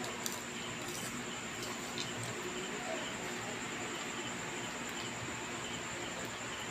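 Quiet steady hiss of room tone with a thin, continuous high-pitched whine, and a few faint light clicks in the first two seconds.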